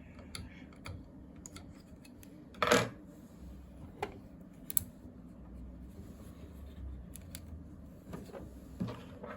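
Scattered small clicks and taps of scanner parts being handled and fitted by hand, with one louder clack just under three seconds in and a sharp click near five seconds.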